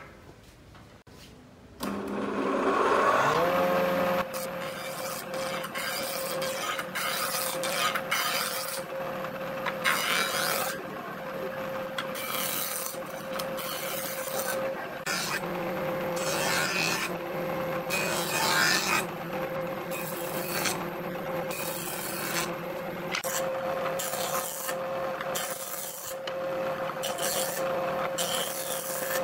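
A handheld electric power tool spins up about two seconds in, then runs steadily at one pitch while it is worked against pallet wood in repeated short passes, about one a second.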